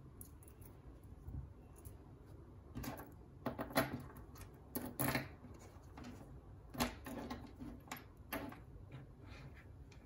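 Irregular clicks and knocks of small metal bracelet links and a leather watch strap being handled on a cutting mat, the sharpest ones about four, five and seven seconds in.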